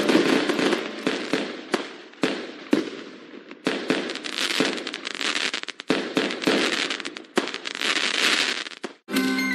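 Fireworks going off: a dense crackle broken by repeated sharp bangs, in several waves, cutting off suddenly near the end.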